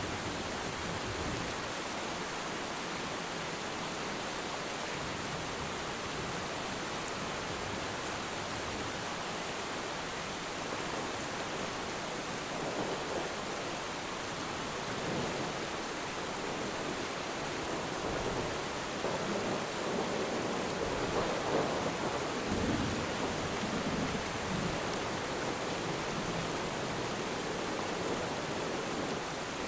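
Steady rain falling on water, with a deep rumble of distant thunder that builds through the middle and dies away before the end.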